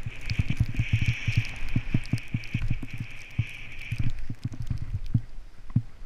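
Skis sliding through deep powder snow, heard from a camera on the skier. There is a steady hiss with irregular low thumps and knocks, and the hiss fades out about four seconds in.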